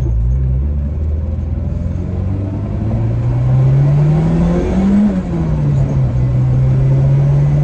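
Turbocharged Honda Integra LS-VTEC four-cylinder engine accelerating. The revs rise steadily for about five seconds, drop sharply with a gear change, then hold steady as the car cruises on.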